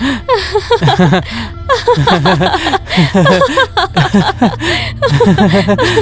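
A woman and a teenage boy laughing together, with quick runs of short laughs following one another.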